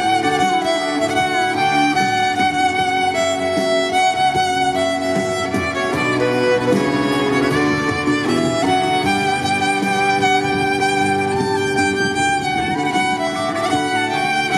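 Violin playing a continuous melody, amplified through a loudspeaker on a stand.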